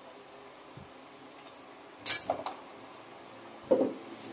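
Two sharp metallic clinks: the first, about two seconds in, is bright and briefly ringing; the second, near the end, is duller. A metal hand tool knocking against metal.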